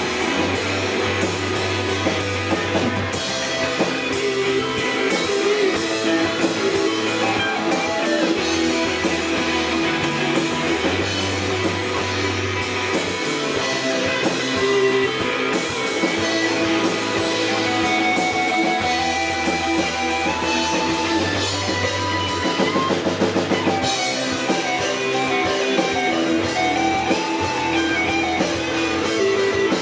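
Live rock band playing an instrumental passage: electric guitars and bass over a drum kit, with sustained guitar notes and a melodic line and no singing.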